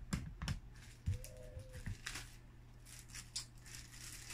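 Clear plastic wrap crinkling and rustling around a graded card slab as it is handled, with a few short clicks and taps.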